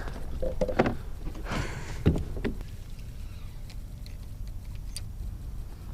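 Small knocks and water sounds around a fishing kayak, busiest in the first couple of seconds, over a steady low rumble.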